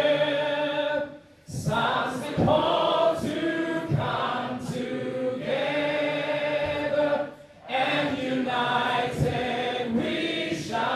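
A crowd of people singing together in long held phrases, with two brief breaks, about a second in and again about seven seconds in.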